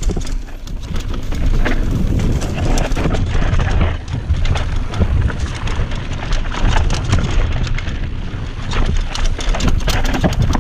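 Mountain bike descending a rough trail, heard from a head-mounted camera: steady wind rumble on the microphone with continual rattles and knocks from the bike over the bumps.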